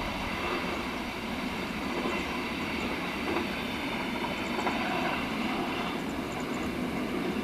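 Train passing on the track, with a steady rolling noise of its wheels on the rails.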